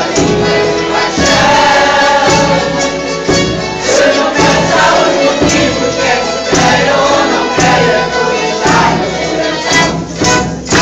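A Portuguese tuna's mixed choir of men and women singing together, accompanied by plucked strings and a bass drum beating about once a second.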